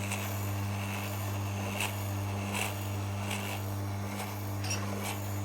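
Refrigeration vacuum pump running steadily on an air-conditioner installation, a constant low electric-motor hum at one pitch, with a few faint ticks scattered through it.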